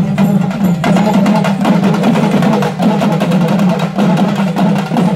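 Urumi melam drum ensemble playing a fast, continuous beat: rapid stick strokes over a low, wavering drone from the urumi drums.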